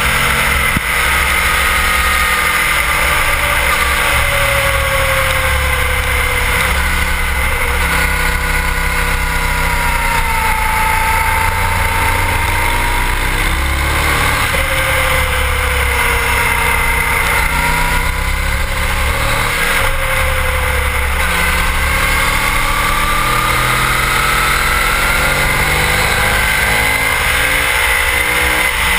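Sport motorcycle engine heard from an onboard camera at track speed, its pitch falling and rising again and again as the rider rolls off and opens the throttle and changes gear through the corners. Heavy wind rumble on the microphone runs underneath.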